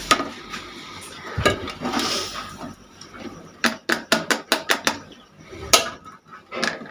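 Crockery and cutlery clinking while tea is served: scattered sharp clinks, a quick run of about eight midway, then two more near the end.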